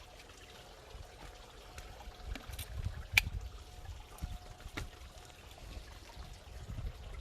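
Water bubbling and trickling steadily. A sharp click sounds about three seconds in, and a fainter one near five seconds.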